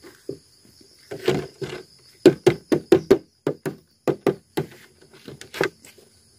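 Clear plastic snake bag being handled, giving a quick irregular run of sharp crinkles and knocks, densest in the middle. A steady cricket trill runs underneath.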